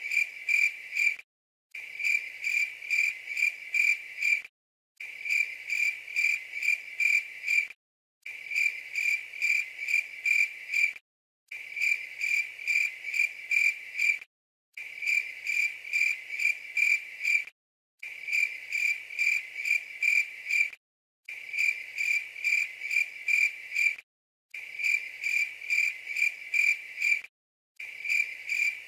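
Cricket-chirping sound effect, looped: a short stretch of steady, evenly pulsed chirps repeats about nine times, each cut off abruptly by a brief gap of dead silence.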